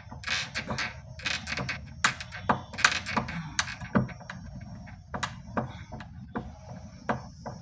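Irregular clicks and knocks of hand tools working a drawer lock bolt loose on a wooden cabinet.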